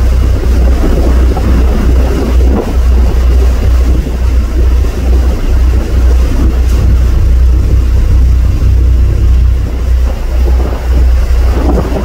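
Low, steady engine rumble of a sightseeing cruise boat under way, with wind buffeting the microphone in unsteady gusts.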